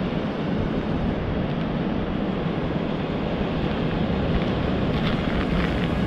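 Steady wind noise on the microphone, with a few faint rustles near the end.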